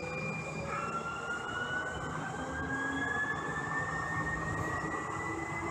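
Whine of a Siemens S200 light rail car's electric traction drive under a steady running rumble. The whine drops abruptly in pitch just under a second in, then climbs slowly and steadily as the train gathers speed.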